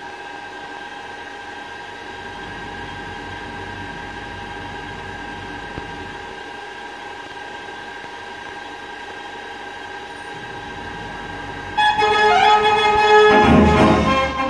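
Pipes of a book-operated dance organ sounding a soft, steady held chord, then about twelve seconds in the organ starts playing a rock'n'roll tune much louder.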